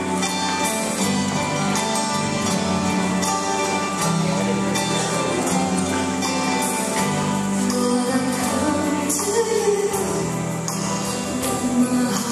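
Christian worship song playing, with singing over instrumental backing.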